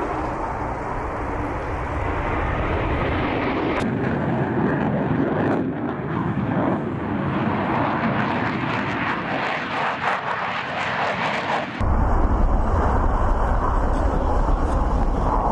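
Jet noise from an F-35 Lightning II's F135 turbofan at takeoff and in flight: a loud, continuous rushing sound that changes abruptly about four seconds in and again about twelve seconds in.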